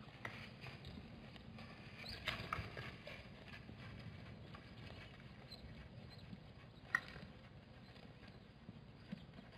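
Faint, scattered hoof clicks and knocks of zebras and a wildebeest stepping on hard, dry ground, with one sharper click about seven seconds in.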